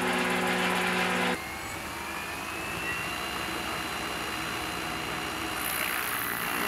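Blowfish A3 electric unmanned helicopter running on the ground with its rotors spinning: a steady whirring with a faint high motor whine that rises slowly. It opens with a louder steady hum that cuts off abruptly about a second and a half in.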